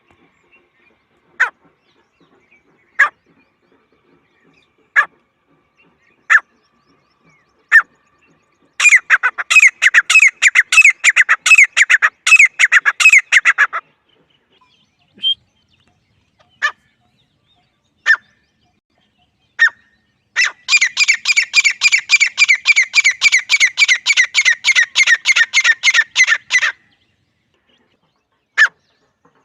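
Teetar (francolin) call recording. Sharp single calls come about every second and a half, then break twice into long, fast, rattling runs of about six calls a second, each run lasting some five or six seconds.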